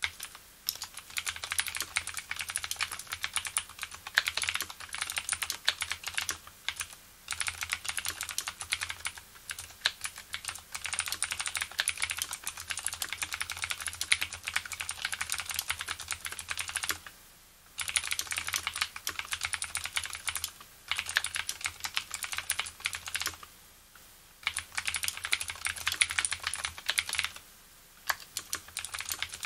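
Leopold FC750R mechanical keyboard with spring-lubed Cherry MX Blue switches being typed on in fast continuous runs, each keystroke giving a sharp click, broken by several short pauses.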